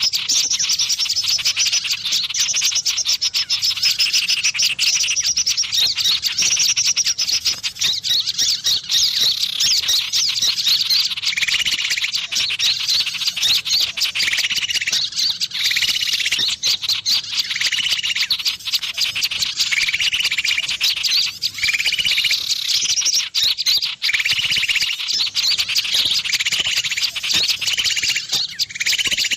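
Small-bird lure call: loud, dense, high-pitched chirping and twittering of small birds, with short lower chattering phrases repeating every second or two from about a third of the way in.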